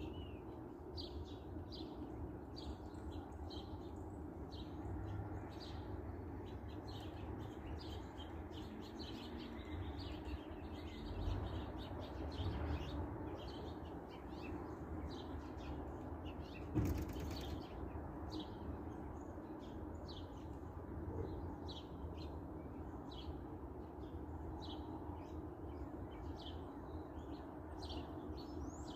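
Many small birds chirping, short high chirps coming several times a second and overlapping, over a steady low background rumble. A single sharp click about 17 seconds in.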